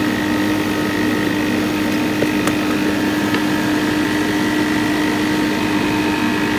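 NAVAC NRDD refrigerant recovery machine running in purge mode, its compressor clearing the machine's leftover refrigerant into the recovery tank. It is a steady hum of unchanging pitch.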